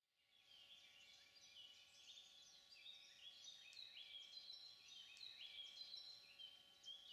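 Faint chorus of songbirds: many short chirps and trills overlapping continuously, fading in at the start, over a faint steady hum.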